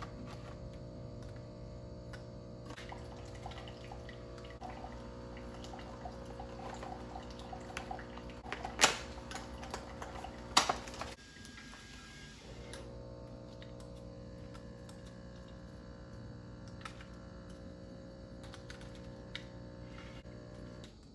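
Nespresso Vertuo Plus running its cleaning cycle: the pump hums steadily and rinse water trickles into a jug, with a brief pause about eleven seconds in. Over it come light clicks of aluminium coffee capsules being set into a capsule drawer, and two sharper clatters around nine and ten and a half seconds.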